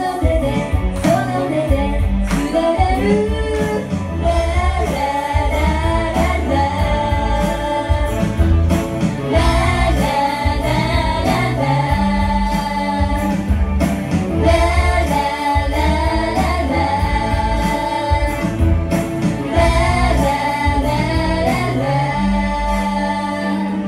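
A female solo singer singing a pop song over a pop accompaniment with a steady beat.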